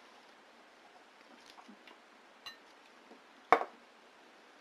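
Quiet room with faint handling clicks, then one sharp knock on the table about three and a half seconds in, the sort a drink glass makes when set down.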